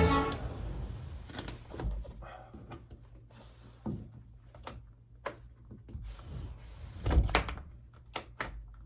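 Sliding glass door hardware being handled and fitted: scattered clicks and knocks of metal parts against the door frame. The loudest knock comes about seven seconds in, followed by a few sharp clicks.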